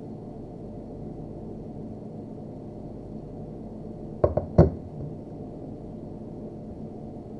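Two sharp snips of a cable cutter, about a third of a second apart, cutting the plastic cross separator out of a Cat 6 network cable, over a steady low background hum.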